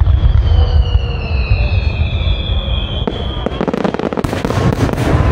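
Fireworks display: a steady low rumble of shell bursts, with a long whistle falling slowly in pitch through the first three seconds, then dense crackling from about three seconds in.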